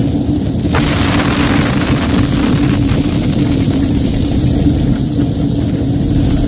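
Air duct cleaning equipment running inside ductwork: a loud, steady rush of air over a steady low hum. The hiss fills out a little under a second in.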